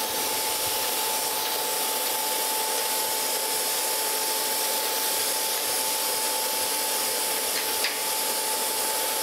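Surface grinder running: the grinding wheel spins with a steady high whine over an even hiss from its spray-mist coolant.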